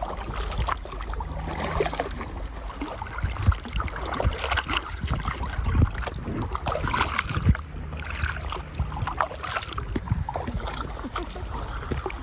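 Kayak paddle strokes: the blades dipping and splashing in the lake water in an uneven rhythm, with a few sharper, louder splashes.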